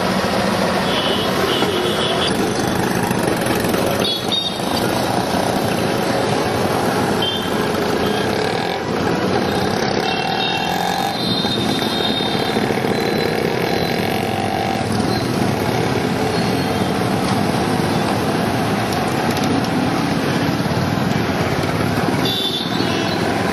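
Busy street traffic: motorcycles and auto-rickshaws running, a steady dense mix of engine and road noise.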